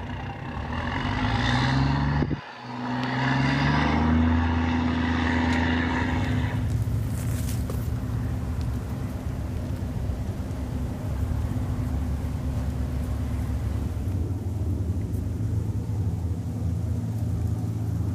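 Amphibious combat vehicle engines running on the water. The engine note rises twice in the first few seconds, with a brief break about two and a half seconds in, then settles into a steady low drone.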